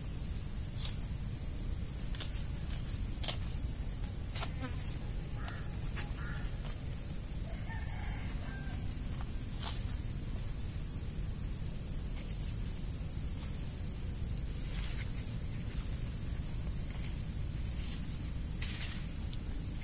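Steady high-pitched insect drone, like crickets, over a low wind rumble on the microphone. A chicken clucks faintly a few times about a third of the way in, and there are scattered faint clicks.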